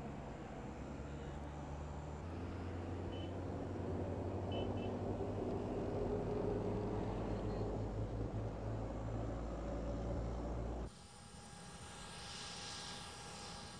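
An engine running steadily with a low hum. About eleven seconds in it cuts off suddenly, leaving quieter outdoor ambience.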